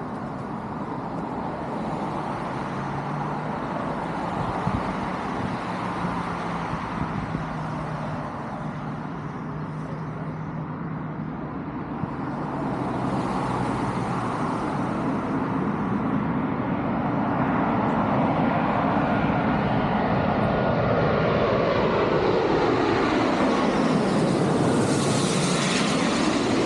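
Road traffic with a steady engine hum, then a jet airliner coming in to land passes low overhead, growing loud from about two-thirds of the way in, its sound sweeping down in pitch and turning back up as it passes.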